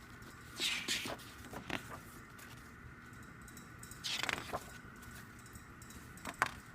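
Pages of a photo booklet being turned by hand: two short paper swishes, about a second in and about four seconds in, with a few light taps and clicks of handling between them.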